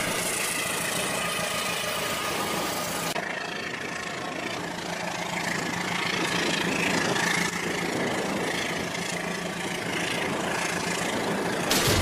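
Battery-powered toy trains running on plastic track, a steady motor hum and rattle that changes character about three seconds in, with a clatter starting right at the end.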